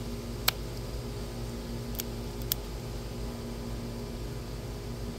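Plastic toy capsule and its shrink wrap handled in the fingers, giving a few sharp clicks: one about half a second in, two more around two seconds in. A steady low hum runs underneath.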